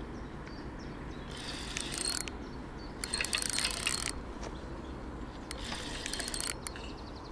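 Spinning reel clicking in several bursts of rapid ticks, about a second each, while a hooked carp is being played on a bent rod and pulls against the drag.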